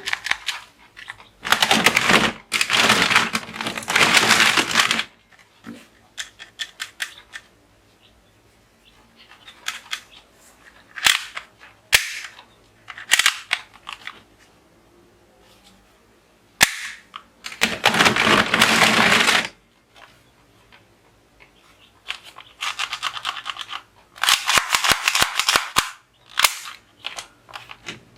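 Toy guns being fired: several bursts of rapid toy gunfire, each a second or a few seconds long, with single sharp clicks between them.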